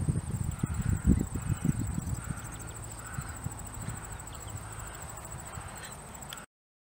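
Outdoor field ambience: wind buffeting the microphone in low rumbles that die down after the first couple of seconds, over a steady high insect trill. The sound cuts off abruptly to silence near the end.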